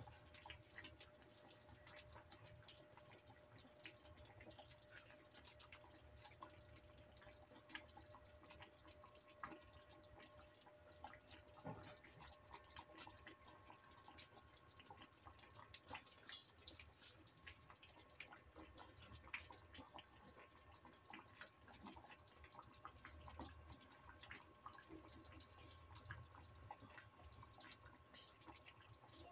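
Near silence: room tone with faint, irregular small clicks and a faint steady hum.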